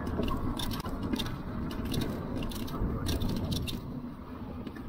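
Electric bike's tyres rolling over the boards of a wooden bridge deck, making a run of quick irregular clicks over a steady low rumble. The clicks die away near the end as the bike rolls onto smooth pavement.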